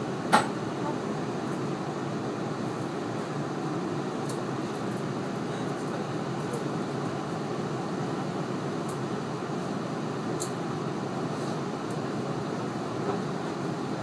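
Steady running noise inside a Tobu 50090-series electric train carriage, with one sharp click about half a second in and a few faint ticks later.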